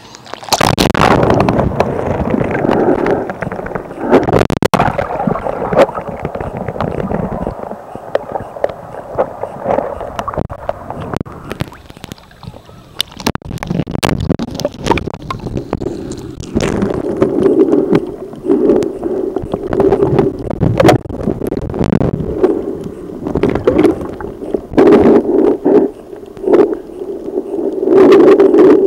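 Water heard through a camera going underwater: a sudden rush as it plunges in, then muffled gurgling and sloshing with sharp knocks and clicks. From about halfway a low pulsing drone swells and fades every second or so.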